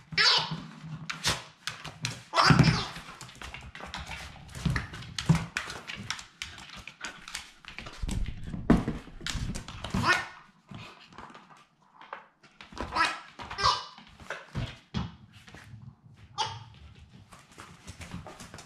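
Wire fox terrier puppy pushing a Wobble Wag Giggle ball around a wooden floor: repeated knocks and scuffs of the ball and paws, with short bursts of the rolling toy's giggle and the dog's own yips.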